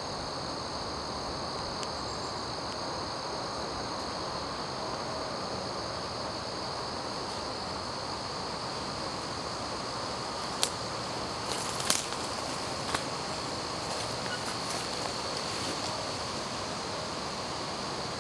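Steady high-pitched drone of insects in woodland, even and unbroken. A few sharp clicks, the loudest sounds, come a little past halfway through.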